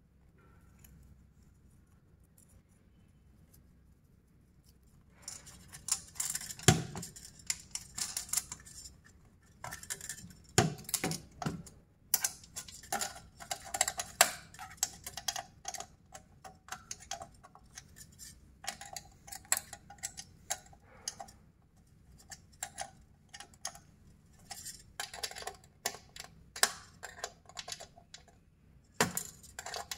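Hands handling light-fixture parts: irregular clicks, taps and rustling that start about five seconds in, after a quiet stretch, with a few louder knocks.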